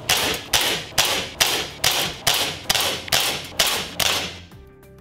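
Umarex Glock 17 Gen3 CO2 blowback BB pistol fired in rapid succession: about nine sharp shots, roughly two a second, each the pop of CO2 with the slide blowing back. Music comes back in near the end.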